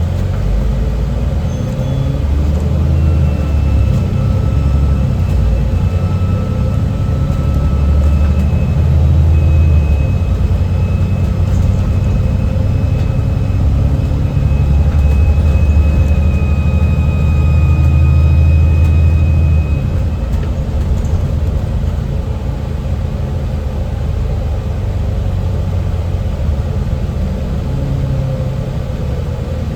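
Alexander Dennis Enviro 400MMC double-decker bus under way, its diesel engine pulling hard with a high turbo whistle that holds for long stretches. About two-thirds of the way through the engine eases off and the whistle fades. The noisy cabin heater fans run steadily underneath.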